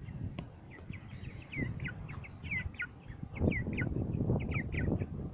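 Young chickens peeping: a run of short high notes, each sliding down in pitch, several a second, over low rumbling noise from wind on the microphone.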